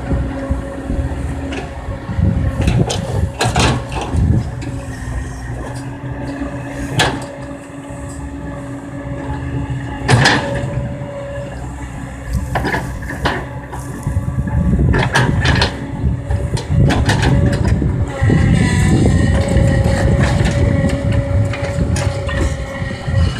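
Kobelco hydraulic excavator running under load, with a steady engine and hydraulic whine. Several sharp knocks come through it, the loudest about ten seconds in. The engine works harder in the last few seconds.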